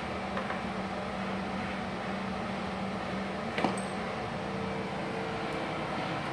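Multipro MMAG 600 welding machine switched on and idling, not welding: a steady fan-like hum with a constant low tone. A single sharp click comes about three and a half seconds in.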